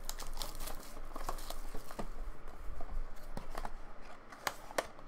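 A trading-card pack wrapper crinkling and tearing as it is ripped open by hand, with many scattered sharp crackles.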